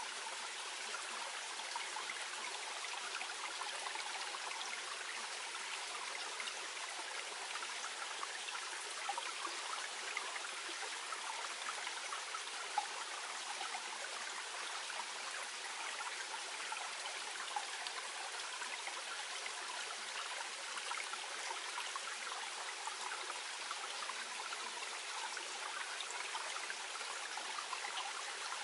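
Small clear stream near its spring source, flowing gently with a steady babbling trickle.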